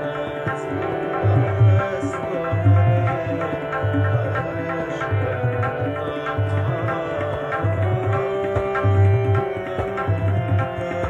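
Afghan ghazal accompaniment on harmonium and tabla. The harmonium holds sustained chords, and the tabla plays a steady cycle with deep bass strokes about once a second.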